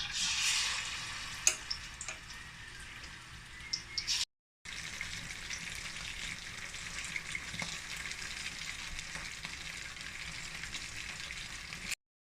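Pieces of chicken karaage deep-frying in hot oil: a steady, dense sizzle and crackle, loudest in the first second or so. It cuts out briefly about four seconds in, then carries on evenly.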